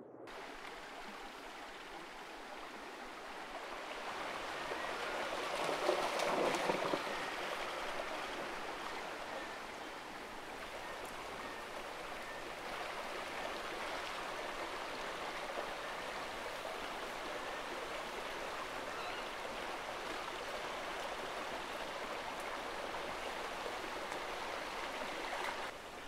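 Shallow river water running and rippling over rocks in a steady rush. About six seconds in it swells briefly louder.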